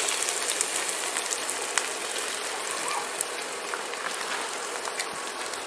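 Chopped onions sizzling in hot oil in a pot, a steady frying hiss with scattered small crackles.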